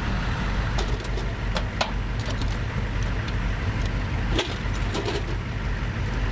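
Humvee diesel engine idling low and steady, with scattered sharp clicks and knocks of gear being handled on the vehicle.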